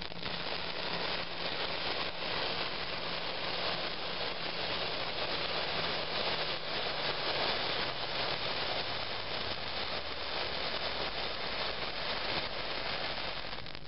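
Homemade magnesium sparkler (potassium nitrate, magnesium and charcoal) burning with a steady rushing hiss and fine fizzing crackle, dying away at the end. It burns as a large flare because there is too much composition on the stick.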